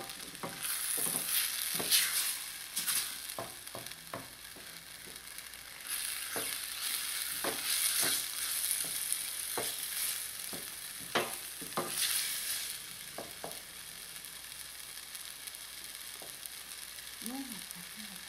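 Diced onion and ground red ají frying in oil in a stainless steel pot, sizzling in waves as a wooden spoon stirs it, with short knocks and scrapes of the spoon against the pot. This is the rehogado finishing its cooking in a little added oil.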